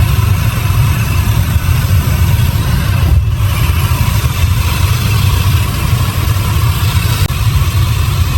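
Heavy sawmill machinery running steadily: a loud, continuous engine drone with a deep rumble, dipping briefly about three seconds in.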